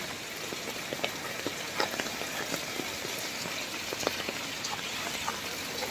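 Steady rain falling, a continuous hiss with many scattered drops striking a surface.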